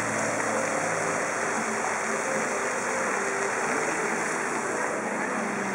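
Steady rushing splash of a large public fountain, with people's voices in the background.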